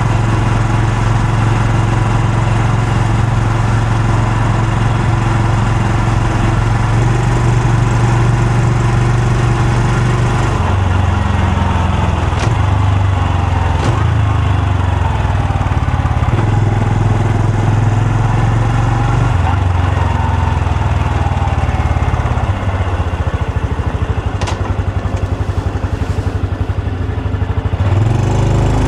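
Honda Super Cub C125's single-cylinder four-stroke engine and exhaust running under way, its note holding steady and then stepping to a new pitch several times, with a rise in revs near the end.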